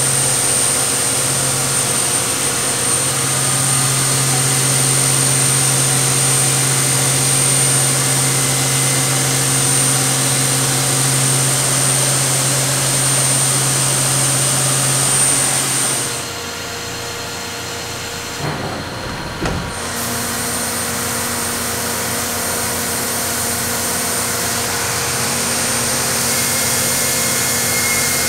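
CNC mill running a light test pass with an end mill around the top of a Toyota G16E three-cylinder block, tracing the outer edge of the coolant jacket: steady machine noise with a high spindle whine and a low hum. About 16 seconds in the whine and hum cut out and it goes quieter for a few seconds, then a steady hum returns at a different pitch.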